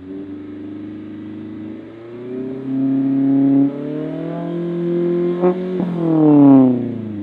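ND2 Mazda Miata's four-cylinder engine and aftermarket-style exhaust accelerating hard, pitch climbing, dropping at an upshift, then climbing again with two short sharp clicks. Near the end the engine note peaks in loudness and falls in pitch as the car goes by.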